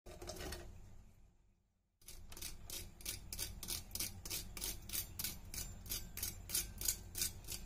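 Crisp fried batter coating on baby corn crackling and crunching as a fork and fingers press and break the pieces apart. A short crunch fades out, then after a brief pause comes a fast run of crackles, about four a second.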